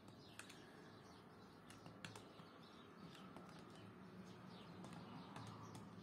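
Near silence with a few faint, scattered clicks of a screwdriver working the screw terminals of a circuit breaker.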